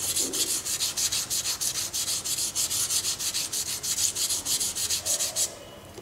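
400-grit wet-or-dry silicon carbide paper scrubbed back and forth by hand on an aluminium beam wetted with conditioner, in quick, even rasping strokes that stop near the end. This is the wet-abrading step of surface preparation for bonding a strain gauge.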